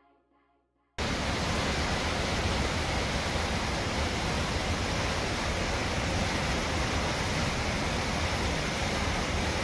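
Glacial whitewater rushing and falling through a narrow rock canyon, a steady roar that starts suddenly about a second in.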